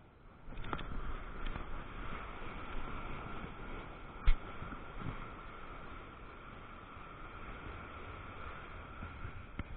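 Steady rush of breaking surf and wind on the microphone, with one sharp knock about four seconds in and a few fainter clicks.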